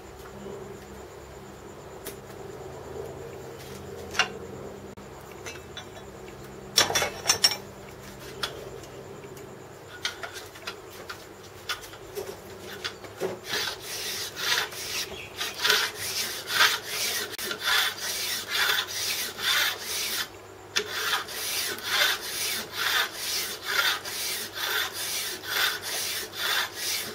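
Body filler file on a wooden backing rasping back and forth across a cast aluminium surface clamped in a vise, in regular strokes about two a second, working the surface down. The filing starts about halfway through, with a brief pause near the end. Before it there are a few knocks.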